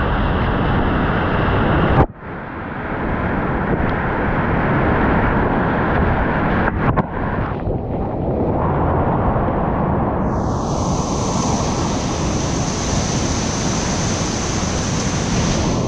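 Loud, steady rush of whitewater rapids with wind noise on the microphone. It breaks off sharply about two seconds in and swells back within a second.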